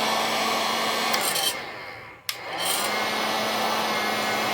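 Handheld hot-air blower, used as a makeshift circuit-board preheater, running with a steady rushing blow and a low hum. About one and a half seconds in it winds down. A click a little later brings it back up, switched to its second, hotter and stronger setting.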